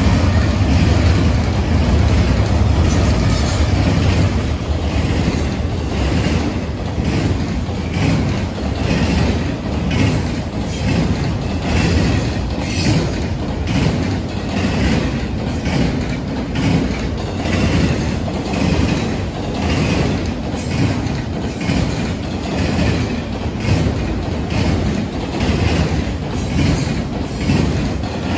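BNSF freight train passing close by. Its diesel locomotives give a heavy rumble at the start, then the double-stacked container cars roll past with the wheels clacking in a steady rhythm, about once a second.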